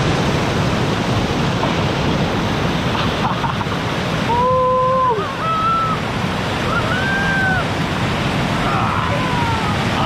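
Small river cascade pouring over a wide rock ledge right beside the microphone: a steady, loud rush of falling and churning water.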